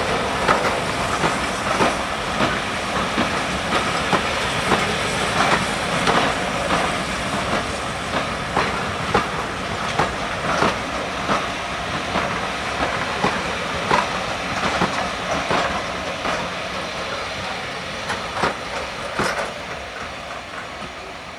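A train's wheels rolling past, clicking over the rail joints at an uneven rhythm, growing fainter towards the end as it moves away.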